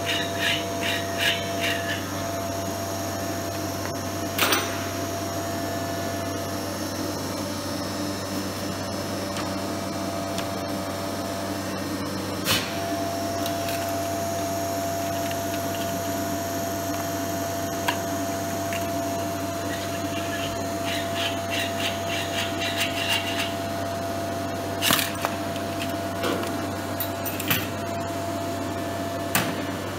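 CNC router vacuum table's pump running with a steady drone. A few sharp knocks and two short runs of quick ticks come from sheets being handled on the table.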